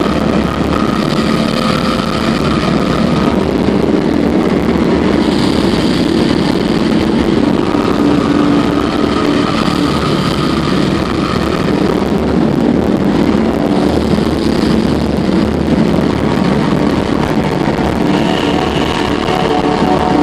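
Live black metal band playing at full volume, distorted electric guitars and drums making a dense wall of sound. It opened abruptly just before, and its sustained chords change every few seconds.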